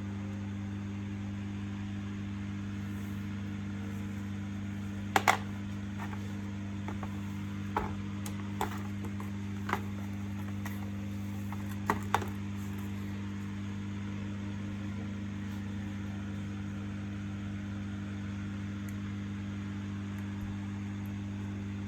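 Steady low electrical hum, with a handful of sharp clicks and taps: a close pair about five seconds in, then several single ones until about twelve seconds in.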